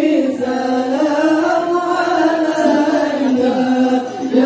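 A group of santri singing a devotional chant together in unison, with long held notes that glide slowly up and down. It is the praise sung at the mahallul qiyam, the standing part of the ceremony.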